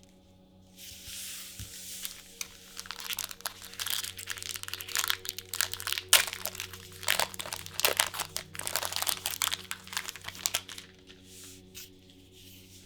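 A trading card booster pack's foil wrapper being crinkled and torn open by hand. It is a dense run of crackles that starts about a second in, is loudest around the middle and tapers off near the end.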